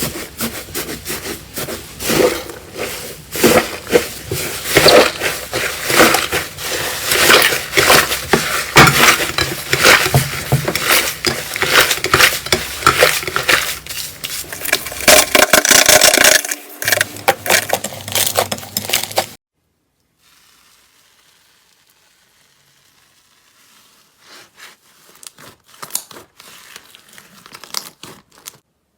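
Slime being squeezed and pressed by hand, giving a dense, loud run of sticky crackling clicks. It cuts off suddenly about two-thirds through, and fainter clicks return near the end.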